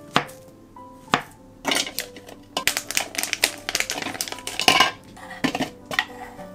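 Kitchen knife cutting through a banana and tapping a wooden cutting board twice, followed by a few seconds of crinkling and clattering as a plastic açaí pack is squeezed into a plastic food-chopper bowl. A few light knocks near the end as banana slices are spooned into the bowl.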